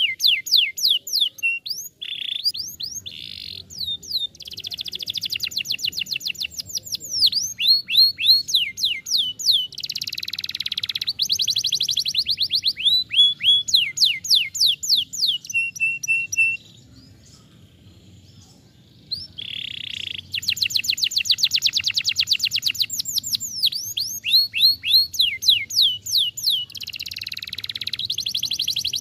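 Domestic canary singing: long, fast trills of rapidly repeated high, down-sweeping notes, with a pause of a couple of seconds just past the middle.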